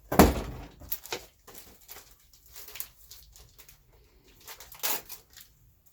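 Paper and cardboard packaging being handled: a loud rustle about a quarter second in, then scattered rustles and light taps.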